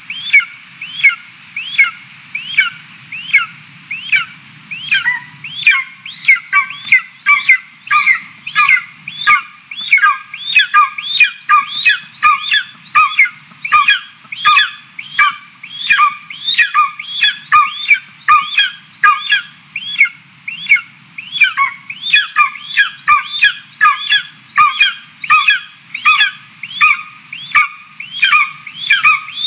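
Golden eagle nestling calling over and over: a continuous run of short, high, down-slurred chirping calls, about two to three a second, quickening in the middle. These are the food-begging calls of a young eagle with a parent at the nest.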